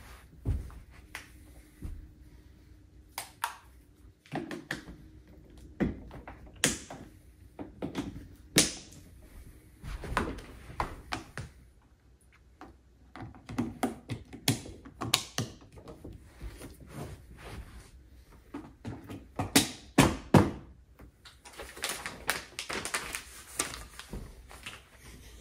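Irregular clicks, taps and knocks of plastic kids' ride-on car parts being handled and fitted together, with a couple of seconds of steadier noise near the end.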